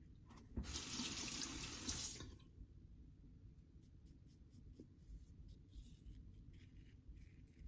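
Bathroom tap running for about a second and a half, then stopping, followed by faint scraping strokes of a Wolfman WR2 safety razor through lathered stubble.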